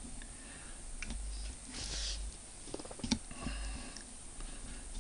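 Small metal parts being handled and fitted by hand at a bench vise: scattered light clicks, a short scrape about two seconds in, and a sharp click just after three seconds followed by a brief squeak.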